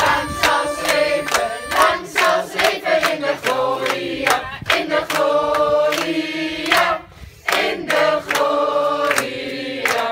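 A group of adults and children singing a congratulation song together, clapping along in a steady beat of about two to three claps a second.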